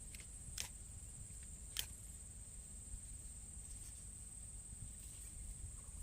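Steady high-pitched insect drone over a low wind rumble, with a few sharp clicks in the first two seconds.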